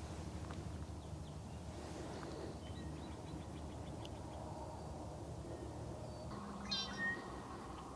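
Wetland ambience: a steady low rumble with faint wild bird calls, a quick run of short repeated notes about three seconds in, and a louder two-part bird call near the end. A faint steady hum comes in shortly before that call.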